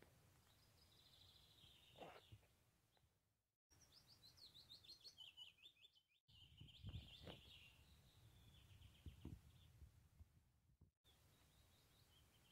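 Faint songbird song: high, quick trilling and chirping phrases repeated several times over a low rumble of wind or handling noise. The sound drops out abruptly three times, briefly.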